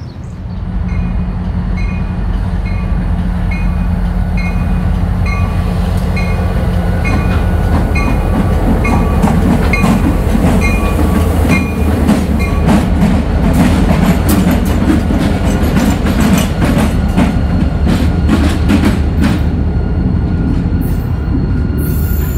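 A freight train passing close by: a steady low drone with a bell dinging about one and a half times a second for the first ten seconds or so, then the cars rumbling past with their wheels clacking over the rail joints.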